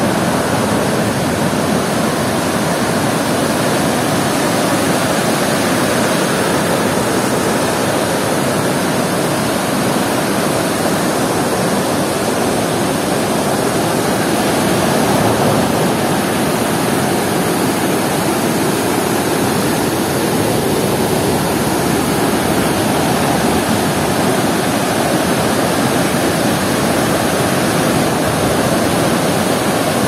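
A wide river waterfall running high with rain-swollen, foamy water, pouring over the drop in a steady, loud rush.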